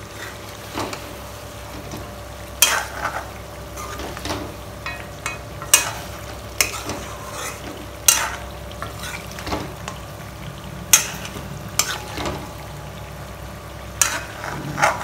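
A metal ladle stirring chicken curry in a metal kadai on a gas stove. The curry sizzles steadily, and the ladle clinks and scrapes against the pan every second or two.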